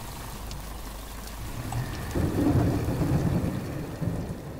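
Thunderstorm sound effect: steady rain, with a low rumble of thunder swelling about two seconds in.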